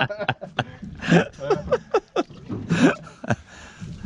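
Short bursts of laughter and brief voices, among several sharp clicks and knocks.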